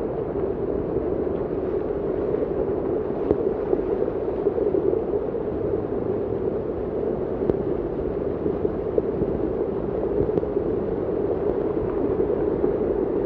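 Muddy floodwater rushing along a street in heavy rain: a steady, unbroken rush of water.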